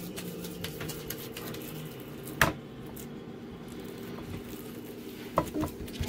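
Hands squishing and pressing raw ground beef mixture into a metal mini meatloaf tin, with many small sticky clicks. There is one sharp knock about two and a half seconds in and two lighter knocks near the end, over a steady low hum.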